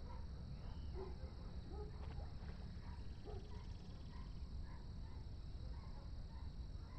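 A steady high insect drone with scattered short chirps and calls over a low background rumble.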